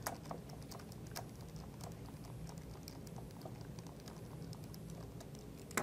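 Light, irregular clicking and ticking of a hand screwdriver turning a hex screw out of a metal plate, with a slightly louder click right at the end.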